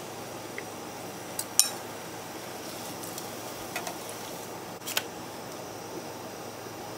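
Corn tortilla frying in a pan of hot vegetable oil, a steady sizzle. A few sharp clinks of metal utensils against the pan, the loudest about one and a half seconds in and another near five seconds.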